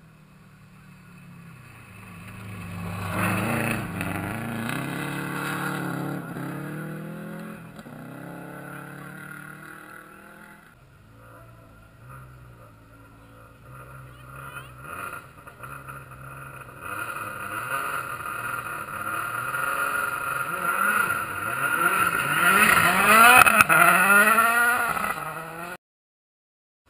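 Rally car engines at full throttle as cars pass on a gravel stage. One goes by a few seconds in. Another approaches and blasts past near the end, its engine pitch rising and falling through gear changes, before the sound cuts off suddenly.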